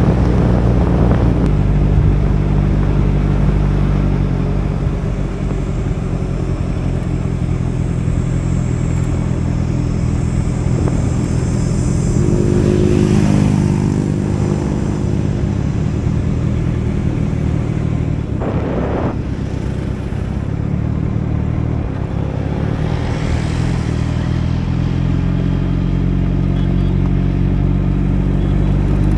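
Motorcycle engine running steadily while riding. Two brief whooshing swells come near the middle and again later, and there is a short sharp sound between them.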